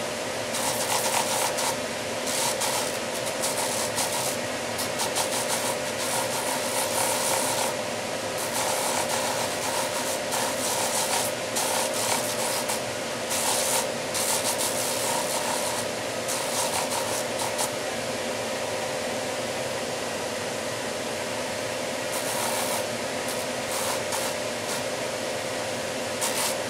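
A wooden intarsia piece being sanded on a spinning sanding drum: a steady motor hum under a rasping hiss that comes and goes as the wood is pressed against the drum and eased off. This is the finer sanding drum, smoothing out the scratches left by the coarser one.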